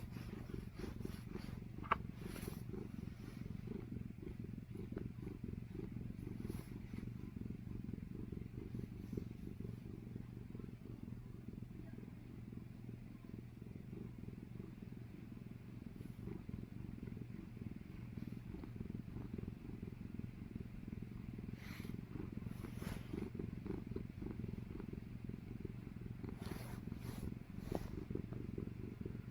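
A 12-year-old domestic cat purring steadily, a low, fast pulsing sound.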